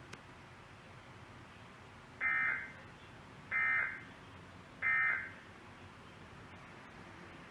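Emergency Alert System end-of-message data bursts: three short, equal, buzzy warbling tone bursts about a second and a half apart, the digital code that closes an EAS alert.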